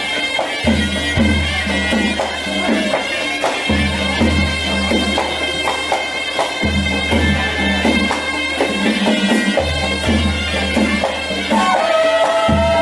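Music: shrill, sustained reed-like wind tones over a low bass and a steady drum beat.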